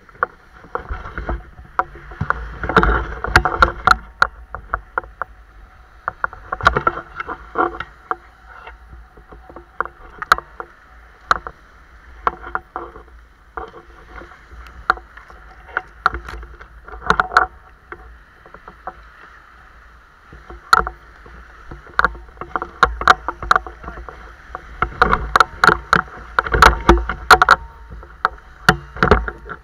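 Handling noise from an action camera mounted on a speargun as it is carried into the surf: irregular clusters of sharp knocks and clicks over a low rumble, muffled, with little treble.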